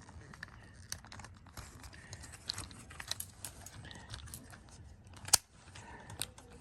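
Handling noise from a small plastic-and-metal camera quick release plate being fiddled with and fitted: scattered light clicks and rustles, with one sharp click about five seconds in.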